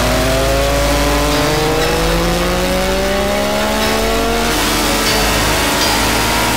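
Triumph Daytona 675's three-cylinder engine through a Devil Rocket exhaust, accelerating. Its note rises steadily for about four and a half seconds, then changes and climbs again.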